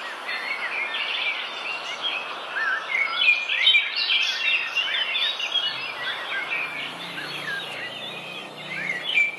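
Many small birds chirping and twittering over a steady outdoor hiss, the calls busiest from about two and a half to five seconds in.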